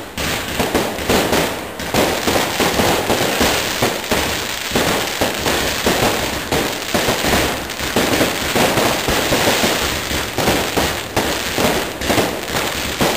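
Aerial fireworks display: a dense, unbroken barrage of shell bursts and bangs, several a second, with crackling between them.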